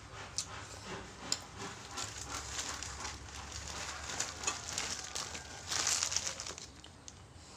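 A crispy cracker crackling and crunching as it is handled and broken, loudest about six seconds in, after a couple of sharp clicks of a metal spoon against a ceramic plate.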